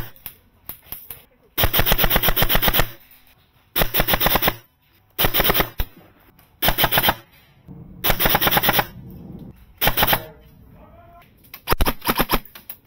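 Repeated full-auto bursts of rapid fire from skirmish-game guns, about seven bursts of half a second to a second or so each, with short pauses between them; the longest burst comes about two seconds in.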